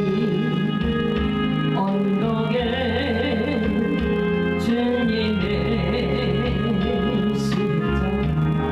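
Music with sustained, organ-like chords under a melody line that wavers in pitch.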